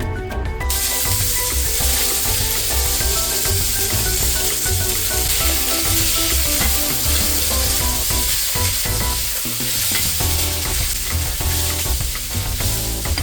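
Rice sticks sizzling as they are stir-fried in a hot pan. A steady frying hiss starts suddenly about a second in, with background music underneath.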